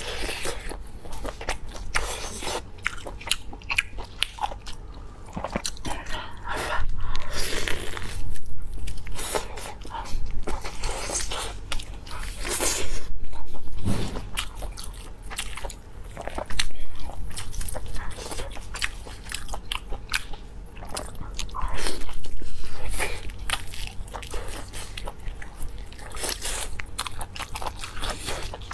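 Close-miked eating of a braised beef rib: biting and chewing the meat with wet, clicking mouth sounds, rising into louder bites several times.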